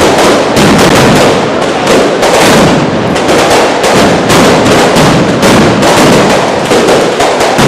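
A loud, unbroken barrage of firecrackers going off in rapid succession, many sharp bangs a second running together.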